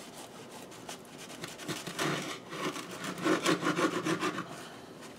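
Serrated bread knife sawing through the crust of a baked bialy: a run of quick rasping strokes that starts near two seconds in and is loudest toward the end.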